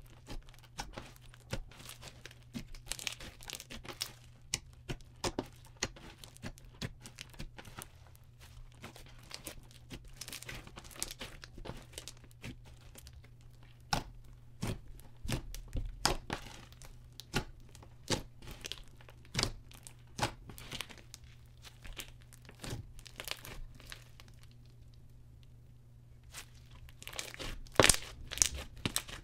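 Hands kneading, pressing and poking a thick slime mixed with small beads and glitter, making irregular sticky clicks, crackles and pops. A louder run of pops comes near the end.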